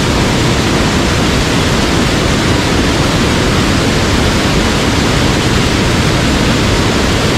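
Loud, steady rush of fast-flowing mountain stream water running over rocks.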